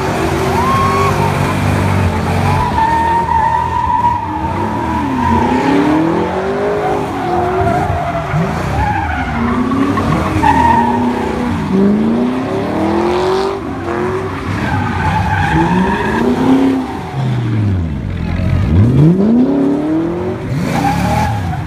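Cars spinning donuts: engines revving with their pitch rising and falling over and over, about every second and a half to two seconds, over continuous tyre squeal and skidding on pavement.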